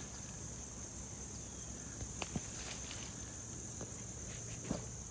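Insects in a steady high-pitched chorus, with a few faint clicks.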